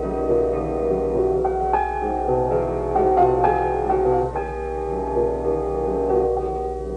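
Solo piano playing a slow melody with chords, the notes held and overlapping, over a steady low hum.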